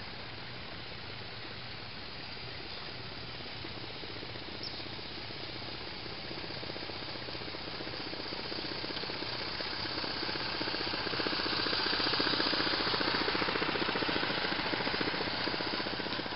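Coal-fired Regner Willi live-steam garden locomotive running, a rapid steady chuffing and hiss from its exhaust that grows louder as it comes close, loudest a little past the middle.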